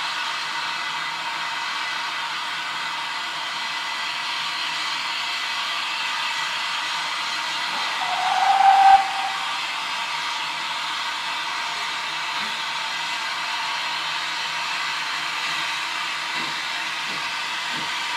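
Avonside 0-4-0 saddle tank No. 1340 'Trojan' standing in steam with a steady hiss of steam. About eight seconds in, a short single-note whistle swells and cuts off; near the end the first exhaust chuffs begin as the engine starts away.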